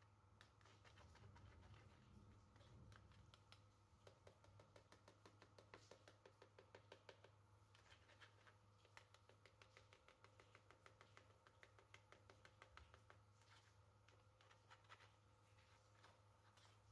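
Very faint, quick scratchy ticking of a metal spoon rubbed around inside a fine wire-mesh sieve, pushing cocoa powder through, over a low steady hum.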